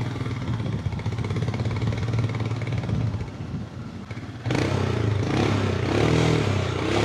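Motorcycle engine running at low revs, getting louder about four and a half seconds in.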